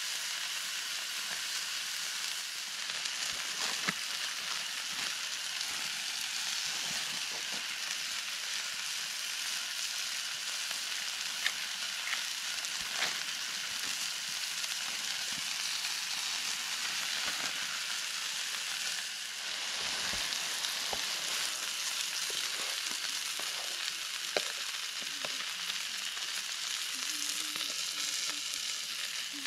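Meat frying: a steady sizzle with a few sharp pops.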